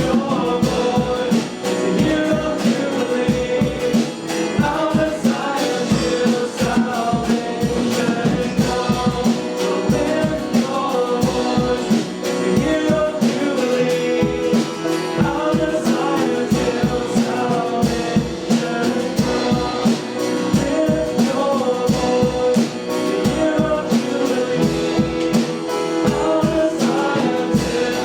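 Worship band playing a gospel-style song with singing over a steady beat.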